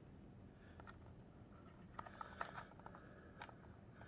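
Faint, scattered clicks and taps of a new front-wheel brake assembly being handled and fitted onto a Clicgear 2.0 golf push cart, with a small cluster of clicks about two seconds in.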